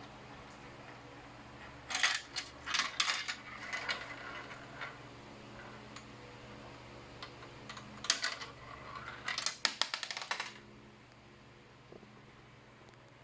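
Marbles clattering down a plastic marble-run track in two flurries of sharp clicks and knocks, the second ending about ten seconds in, over a steady low hum.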